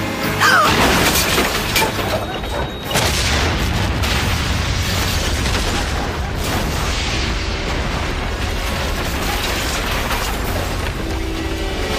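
Explosion of a van packed with explosives: a sudden blast about half a second in, a second blast about three seconds in, then a steady low rumble of fire and debris.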